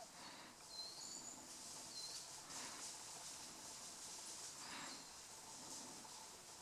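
Faint woodland ambience with a few short, high bird chirps in the first two seconds and two soft hushing swells around the middle.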